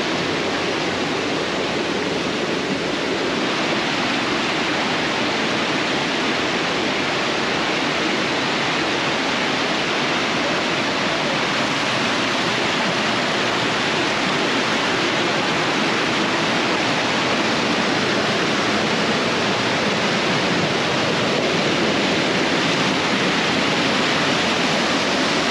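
Fast-flowing rocky river rushing and splashing over boulders in small cascades: a steady, full rush of whitewater, growing slightly louder near the end.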